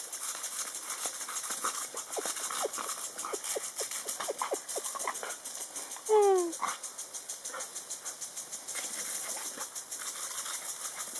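A dog snapping and biting at a garden sprinkler's water jet, making many short squeaky mouth sounds over the steady hiss of the spray. About six seconds in it gives one loud whine that falls in pitch.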